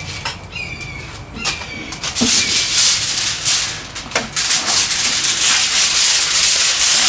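Aluminum foil crinkling and rustling as a sheet is spread and handled by hand, turning into a loud, dense crackle about two and a half seconds in.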